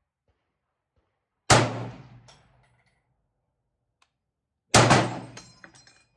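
Two rifle shots from an M1 Garand in .30-06, a little over three seconds apart, each echoing under a covered range roof. After the second shot comes a brief high metallic ringing with a few light clinks.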